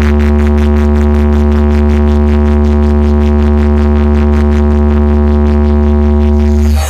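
A competition DJ speaker stack plays a sustained, very loud deep bass drone with steady higher tones over it and a fast pulsing on top. It cuts off abruptly right at the end.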